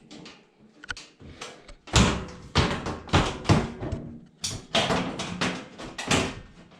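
Tumble dryer side cover panel being handled and fitted onto the cabinet: a quick series of knocks and clatters, starting about two seconds in.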